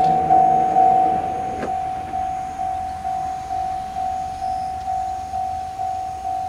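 Japanese railway level-crossing alarm bell ringing its single high note over and over, about two strikes a second, each stroke fading before the next. A lower steady drone underneath stops abruptly a little under two seconds in.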